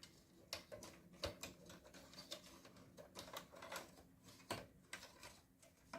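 Faint, irregular clicks and taps of cables and plastic parts being handled and routed inside a desktop computer case.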